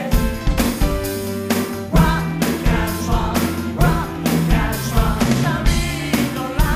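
A pop-rock cover band playing a song: a singing voice over a steady drum beat and bass line.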